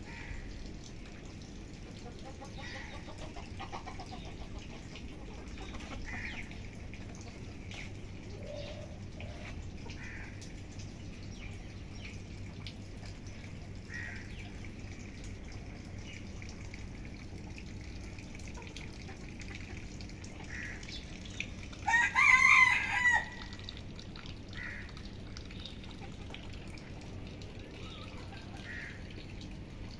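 A rooster crows once, loudly, about two-thirds of the way through, over a steady low background hum with faint short calls every few seconds.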